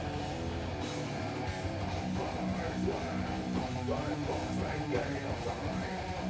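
Live heavy metal band playing: electric guitar, bass guitar and drums at a steady level, with vocals into the microphone.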